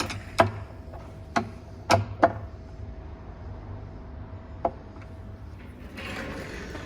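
Several sharp clicks and knocks, about six spread over the first five seconds, from a cabinet door on its Blum concealed hinge being worked during hinge adjustment, followed near the end by a brief soft rustle.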